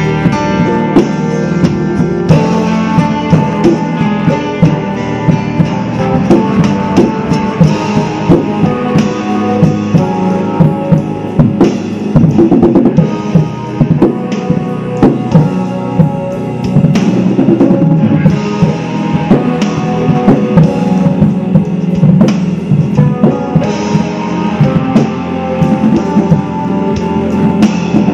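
Acoustic drum kit with Zildjian cymbals played busily along to a guitar-led rock backing track: dense drum and cymbal hits with bass drum under the guitar lines.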